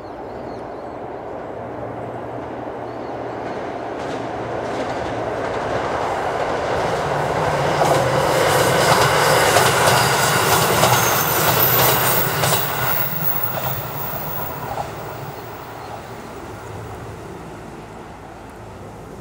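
Diesel multiple unit passing by, its engine drone and its wheels clicking over the rail joints. The sound builds up, is loudest about ten seconds in, then fades away.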